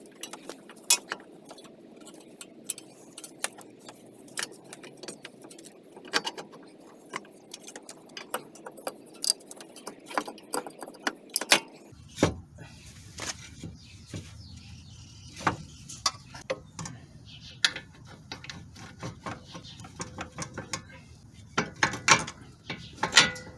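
Irregular metallic clinks, taps and knocks of hand tools and steering-knuckle and strut parts being handled while the new CV axle is fitted, with two louder knocks near the end.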